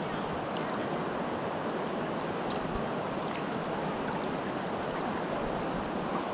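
River water rushing steadily, with a few faint small splashes.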